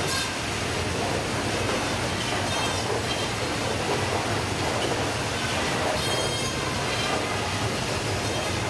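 Baader fish-processing machine running on a factory ship's processing line, a steady mechanical rumble and clatter as fish are fed through it. Brief higher-pitched metallic rattles stand out just after the start, near 3 s, and around 6 s.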